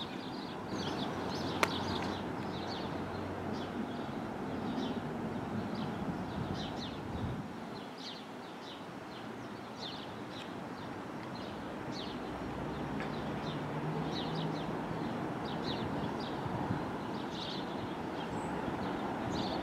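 Class 37 diesel locomotive's English Electric V12 engine running as the locomotive approaches slowly, its low note strengthening in the second half, with birds chirping throughout. A single sharp click about a second and a half in.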